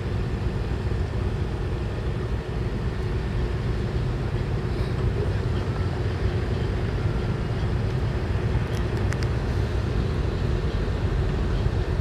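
Engine of a fisheries training ship running with a steady low drone as the vessel moves slowly through the harbour.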